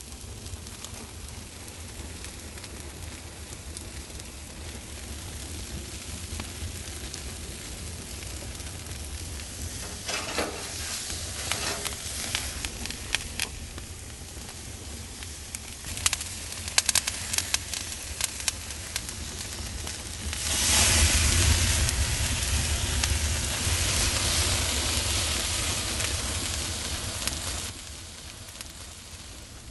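Flat iron steak sizzling on a mesh grill grate over a wood fire, with scattered crackles. About two-thirds through, flames flare up around the meat and the hiss swells loudly for several seconds, then falls back.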